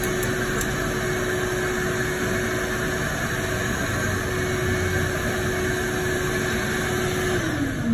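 A small electric blower motor running with a steady whir and a hum. The hum slides down in pitch near the end as the motor is switched off and winds down.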